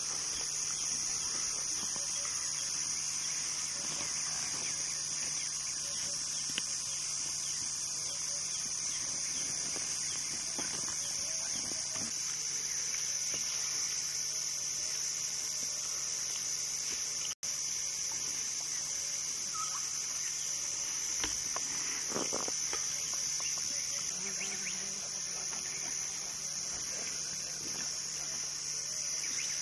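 Steady high-pitched insect chorus shrilling without a break, with a few faint crackles now and then.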